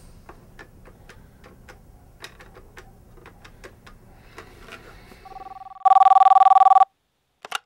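Faint irregular clicks of a phone being handled and dialled, then a desk telephone's electronic ringer trilling loudly in two tones for about a second. One sharp click follows near the end.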